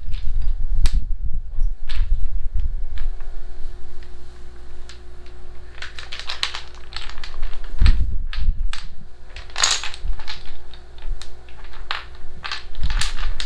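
Wooden toy building blocks clacking against each other and the tiled floor as they are picked up, stacked and set down: irregular sharp clicks and knocks, coming in quick clusters.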